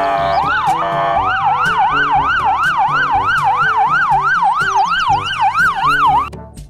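Police car siren in a fast up-and-down yelp, about three sweeps a second, taking over from slower sweeps about a second in; it cuts off near the end.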